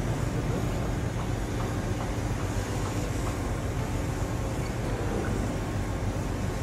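Steady wind noise and low rumble on a cruise ship's open upper deck.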